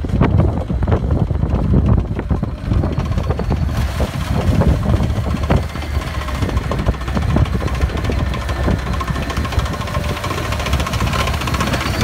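MT-LB tracked carrier's V8 diesel engine running hard while its tracks clatter, as it drives out of the stream through slush. The sound grows brighter and closer from about four seconds in.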